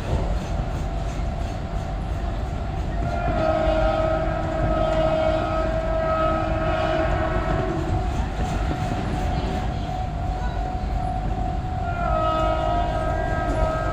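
Mumbai local electric train sounding its horn in two long blasts over the steady rumble of the running train: the first comes about three seconds in and lasts some five seconds, the second starts near the end.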